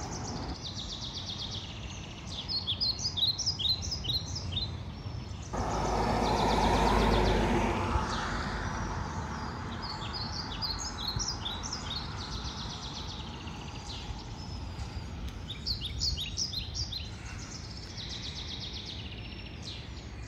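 Small birds chirping in short, quick runs over steady outdoor background noise. About five seconds in, a vehicle swells past and fades away.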